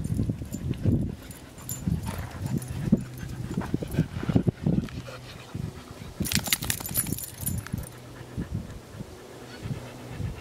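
A Dalmatian moving about close to the microphone on sand: irregular soft thumps and breathing, with a brief sharp high rattle about six seconds in.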